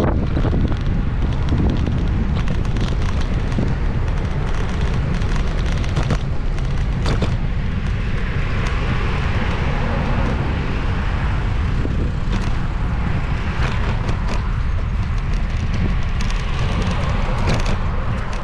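Wind buffeting the microphone, a steady heavy low rumble with some crackle.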